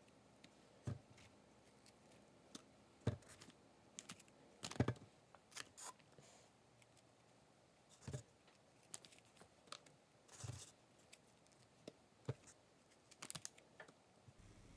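Quiet handling sounds of strawberries being hulled with a small paring knife and picked from a styrofoam box: irregular soft clicks, taps and brief rustles, a dozen or so spread unevenly.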